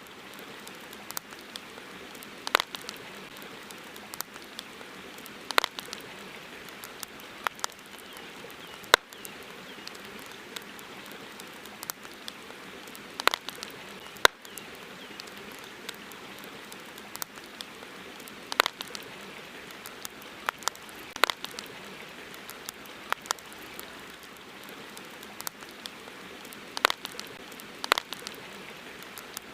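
Campfire crackling: sharp, irregular pops and snaps from burning wood over a steady hiss of flowing river water.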